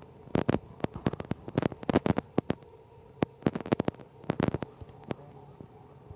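A run of irregular sharp clicks and taps, coming in quick clusters with short gaps between, over a faint steady hum.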